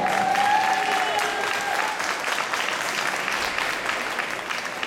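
Audience applauding, a dense clatter of many hands, with a long held tone over it for about the first second.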